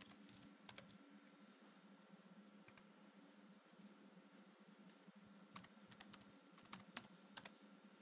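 Faint keystrokes on a computer keyboard as a password is typed in: scattered single clicks and short clusters over a faint steady low hum.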